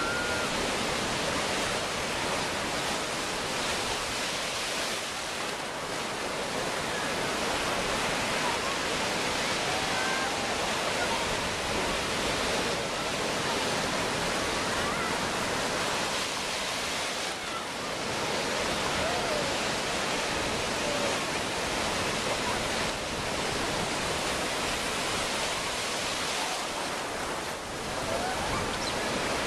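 Ocean surf breaking in the shallows: a dense, steady wash of foaming water.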